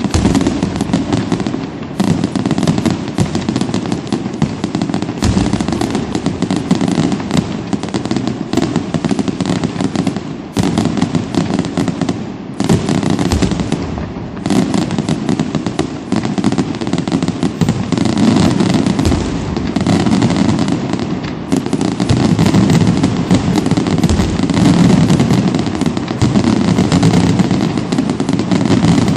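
Fireworks display in full barrage: aerial shells bursting in rapid, overlapping bangs with no break, loud throughout.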